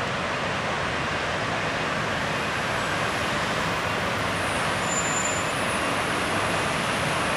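Steady, even rushing background noise with no distinct events, and a brief faint high tone about five seconds in.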